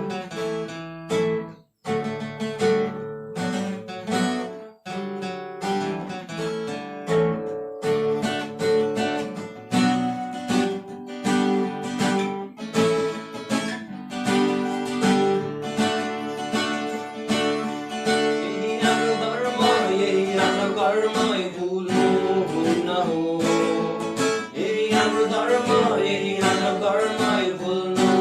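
Acoustic guitar playing an instrumental passage of plucked and strummed chords, with a higher wavering melody line joining about two-thirds of the way through.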